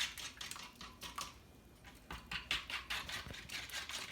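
Whisk beating egg, milk and sugar mixture in a flat tray: quick clicking strokes against the tray, about three to four a second, with a short pause about a second in. Undissolved sugar granules grate at the bottom of the tray.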